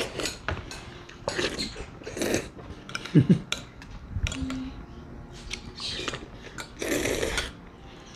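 Fork and spoon clicking and scraping on a ceramic plate of lomi noodles, with short noisy mouth sounds of eating between the clinks.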